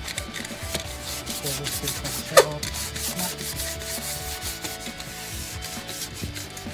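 Hand sanding block with sandpaper rubbed back and forth over a Ryukyu pine table slab, a run of repeated scraping strokes. One brief sharp sound, the loudest in the stretch, about two and a half seconds in.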